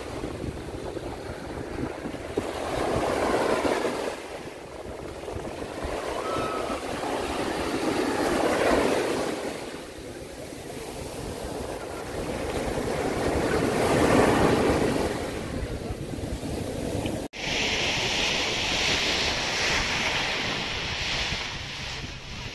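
Small sea waves breaking at the shoreline and washing up the sand, surging and then falling back about every five to six seconds. Near the end the sound cuts to a steadier, higher hiss.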